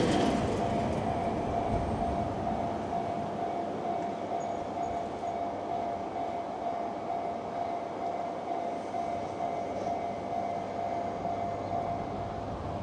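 Freight train's wagons rolling past and fading away, with a steady high tone held throughout.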